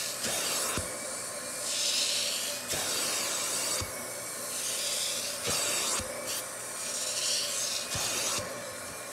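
Hot-water extraction upholstery tool drawn in repeated strokes across a fabric sofa cushion: a hiss of spray and suction that swells and fades with each pass, about every one and a half to two seconds, with short clicks between strokes, over the steady hum of the extractor.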